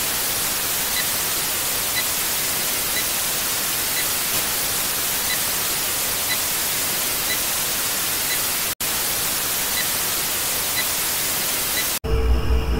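Steady TV-static hiss with faint short blips about once a second. It drops out for an instant, then cuts off and gives way to dark, eerie music with a heavy low bass in the last second.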